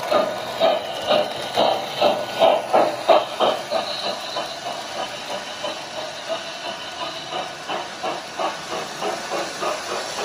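Lionel O-scale Blue Commodore Vanderbilt model steam locomotive's sound system chuffing with steam hiss as it gets under way. The chuffs come about two a second, then quicken to about three a second and grow lighter after about four seconds as the train picks up speed.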